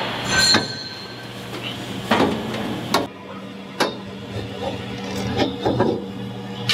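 Chromoly roll-cage tubes knocking and clanking against the car's body and floor as the bars are worked into place: a few separate, irregularly spaced knocks over a steady low hum.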